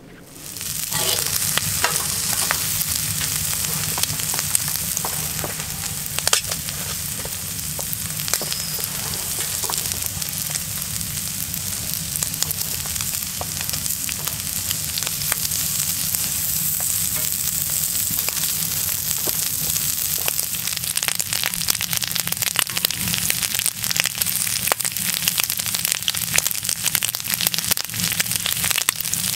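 Shrimp and bacon frying in a steel frying pan on a woodstove top: a steady sizzle full of little crackling pops. It comes in abruptly about half a second in.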